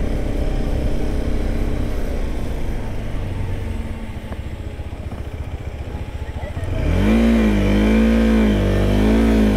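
KTM 390 Adventure's single-cylinder engine pulling uphill, with a low road and wind rumble. About seven seconds in, the engine note rises sharply and then holds, wavering, as the throttle opens on the climb.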